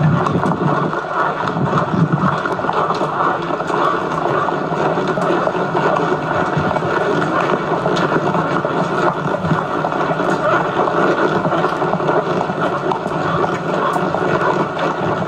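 Steady rushing noise of wind on the microphone of a camcorder carried on horseback, heard replayed through a TV speaker, so it sounds muffled and dull.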